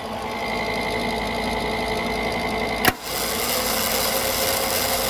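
Millermatic 130 MIG welder powered up, its cooling fan humming steadily; about three seconds in the newly replaced contactor clacks in and the wire-feed motor spins up, turning the drive roll with a rising whine.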